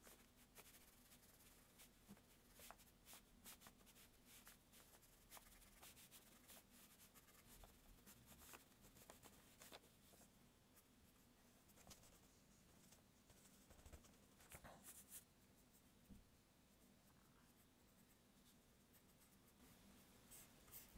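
Faint, scratchy strokes and dabs of a paintbrush laying acrylic paint onto a painting board, scattered irregularly, over a faint steady low hum.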